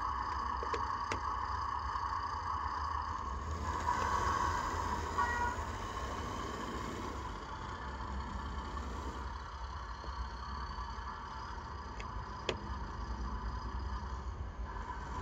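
Train Tech SFX20 diesel sound chip inside a Lima OO gauge Class 50 model locomotive, playing recorded diesel engine sounds through its small speaker as the model runs along the track. A steady low hum sits beneath it, with a couple of sharp clicks, one about a second in and one near the end.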